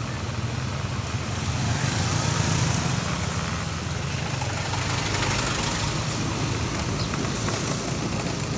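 Steady rush of wind and road noise from riding along a street in the open, with a low engine hum underneath.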